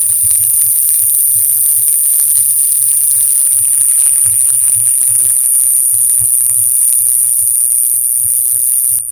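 Young rattlesnake buzzing its small, not yet fully developed rattle: a loud, steady, very high-pitched buzz like an electrical buzz or an insect rather than a traditional rattle. It cuts off suddenly just before the end.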